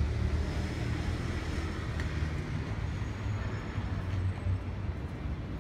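Steady low rumble of city road traffic, with no distinct event standing out.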